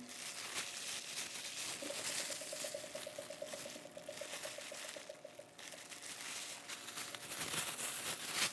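Faint crinkling and rustling of material being handled, with a faint fast pulsing tone for a few seconds partway through.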